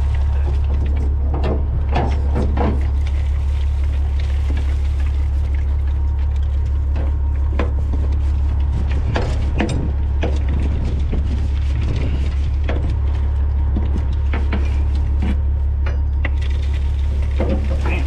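Wood chipper running steadily under load, its engine giving a loud, constant low drone. Irregular sharp cracks and snaps come through as branches and brush are fed in and chipped.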